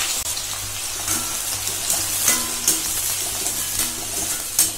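Sliced onions sizzling steadily as they deep-fry in hot oil in a kadai. A spoon stirring them scrapes against the pan a few times.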